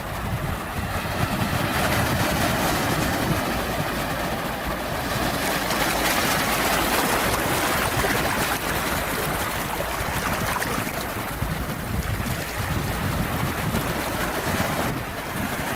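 Sea waves washing in: a steady rush of surf that swells over several seconds, eases off around eleven seconds in, then builds again before dipping near the end.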